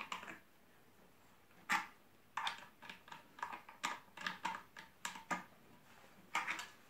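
Short sharp metallic clicks and taps in irregular clusters, starting about two seconds in, as a wrench and hand work the screw-on part that holds the Sauer 303 rifle's forend during tightening.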